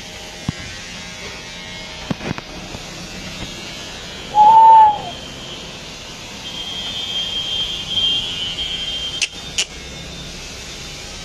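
Electric hair clipper running while shaving a head, its high whine louder for a couple of seconds past the middle, followed by two sharp clicks. About four seconds in, one short, loud hoot that rises slightly and falls in pitch.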